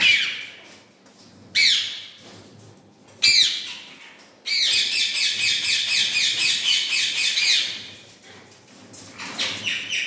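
Indian ringneck parakeets calling: three short, loud calls that drop in pitch, about a second and a half apart, then a rapid run of repeated calls lasting about three seconds, with fainter calls near the end.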